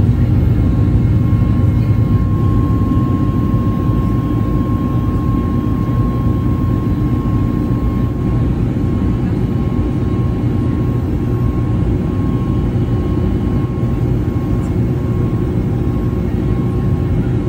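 Steady jet engine and airflow noise heard inside the cabin of a Boeing 737 MAX 8-200 with CFM LEAP-1B engines: a low, even rumble with a faint steady whine above it.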